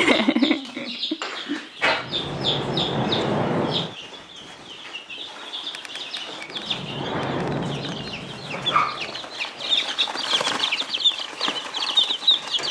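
A flock of young chicks peeping: many short, high, falling peeps overlapping, growing denser near the end, with bouts of rustling noise in between.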